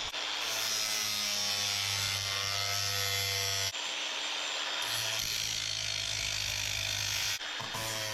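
Power saw running and cutting through strips of steel into short pieces: a steady motor hum with a rasping cutting noise. The sound breaks off and jumps abruptly twice.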